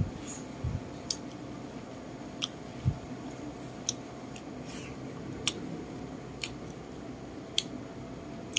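Close-up eating sounds: sharp light clicks about once a second as chopsticks and fingers pick meat apart on a plate and the mouth chews, with a couple of soft low thuds in the first few seconds.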